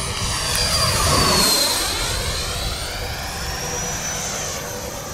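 90mm electric ducted fan of an FMS Super Scorpion RC jet on a fast flyby: a rushing whine that swells, drops in pitch as the jet passes about a second in, then carries on as a steady high whine as it climbs away.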